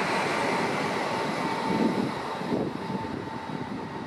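Meridian Stadler FLIRT electric multiple unit pulling out and moving away: a rumble of wheels on rail with a steady high whine, fading over the last couple of seconds.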